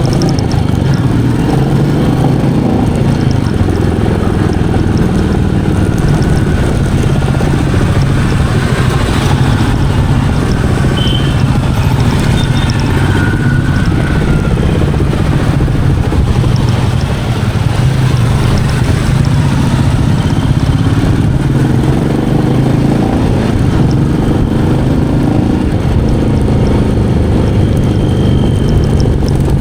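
Royal Enfield Meteor 350's single-cylinder engine running steadily while the bike is ridden, with a low, even thump and road noise.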